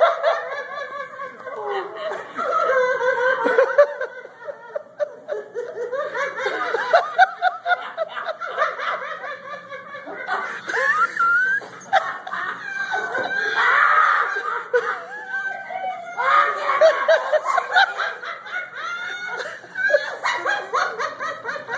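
Several people laughing helplessly in fits that swell and fade, the 'holy laughter' of a charismatic revival meeting.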